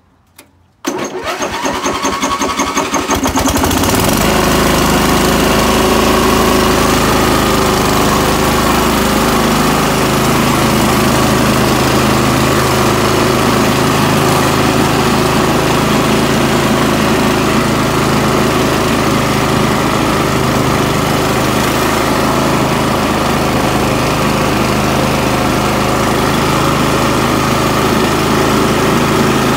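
Greenfield E2000 ride-on mower's engine starting about a second in, cranking and catching over a couple of seconds, then running loud and steady as the mower drives. It is pretty noisy because the exhaust is missing a few bolts.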